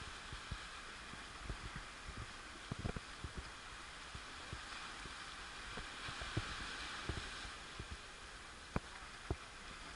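Sea water lapping at water level, with irregular small splashes and knocks over a steady hiss of wash and wind.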